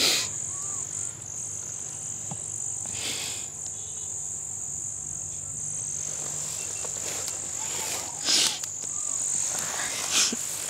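Steady high-pitched trilling of an insect chorus in long grass, with a few brief rushes of noise over it, the loudest about eight seconds in and just after ten seconds.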